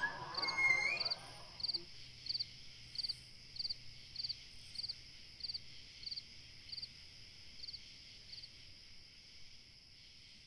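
Crickets chirping in a regular pulsed rhythm, roughly two chirps a second, over a steady high insect drone. The chirps grow fainter and stop a little before the end. A brief louder noise comes just at the start.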